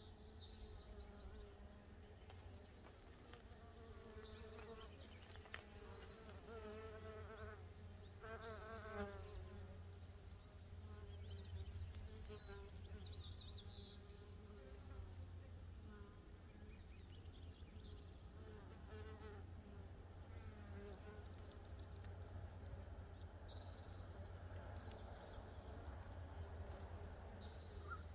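Mason bees buzzing in flight around their nest holes. The faint buzz comes and goes and wavers in pitch as bees pass close and away. A few short, high bird chirps sound now and then.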